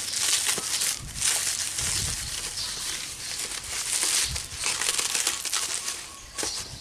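Packaging crinkling and rustling in irregular handling noises as the light bulb is unwrapped from its box.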